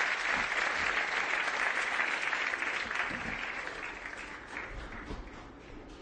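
Studio audience applauding, loud at first and dying away over the second half, breaking into a few scattered claps near the end.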